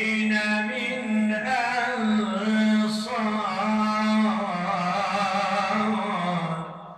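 A man reciting the Quran in melodic chant: one long drawn-out phrase, the voice held and wavering in pitch, trailing off near the end.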